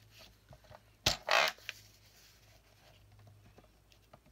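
Paper being worked on a We R Memory Keepers paper trimmer: a sharp click about a second in, then a short scraping swish, with light taps of paper handling around it.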